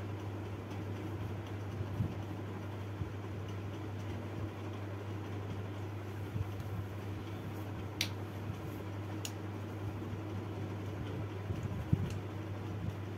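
Steady low hum over even room noise, with a few light, sharp clicks in the second half.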